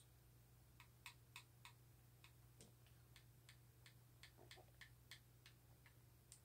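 Faint, quick clicking of a game controller's buttons, about three to four clicks a second and not evenly spaced, over a low steady hum.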